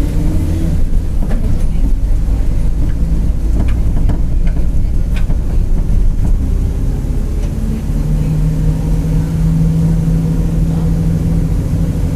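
Mercedes-Benz OF-1721 BlueTec 5 bus running under way: a steady diesel drone with scattered light rattles. A steady hum joins about eight seconds in, fitting the growl of its differential.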